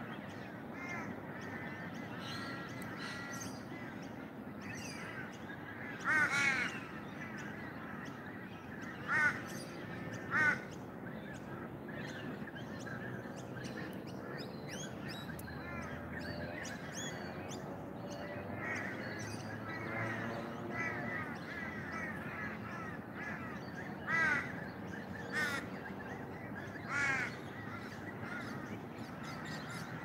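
Crows cawing: a handful of short, loud calls spread through, two close together near the end, over steady chirping from smaller birds and a low background hum.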